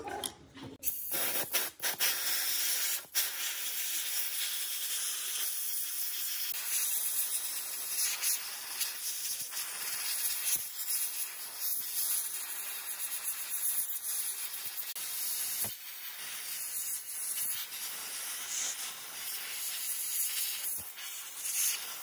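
A hand-held spray wand hissing steadily as it jets onto the rusty, dirt-caked frame of an old RC helicopter to clean it. The spray starts about a second in and stutters briefly before settling into a continuous hiss.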